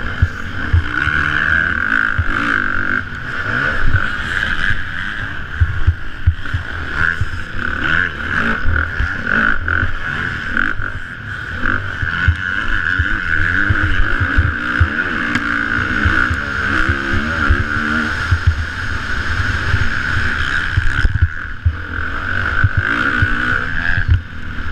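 450-class motocross bike engine being ridden hard, its pitch rising and falling again and again as the rider revs and shifts through the turns. Frequent short knocks come through over the engine.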